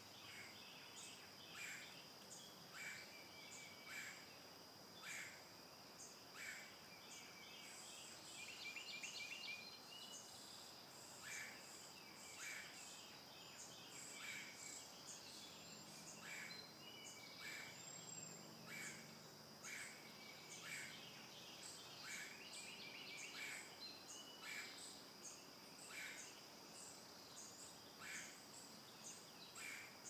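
Red-headed woodpecker calling: faint short calls repeated about once a second, broken twice by a quick chattering run of notes, over a steady high-pitched insect drone.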